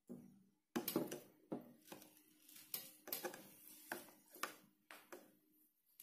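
Metal spoon scooping soft watermelon flesh out of a halved melon and spooning it into a plastic blender cup: an irregular string of short wet scrapes and clicks.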